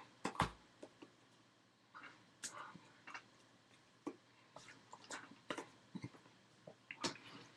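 Irregular soft clicks, taps and slaps from a person signing, as hands strike and brush against each other and the body, with faint mouth sounds and breaths. A sharp thump about half a second in is the loudest.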